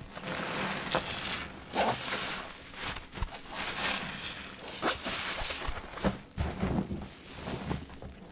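Hands squeezing and kneading a soap-soaked blue sponge in a basin of sudsy water: wet squelching, sloshing and crackling foam in irregular surges about once a second.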